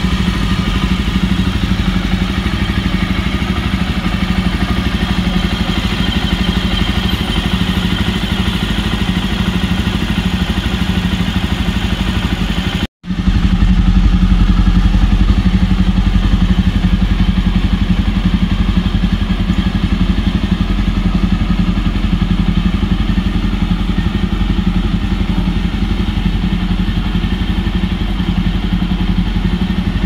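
Jawa 42 Bobber's single-cylinder engine running steadily at idle through its dual exhausts, with no revving. There is a brief break about 13 seconds in, after which it is louder.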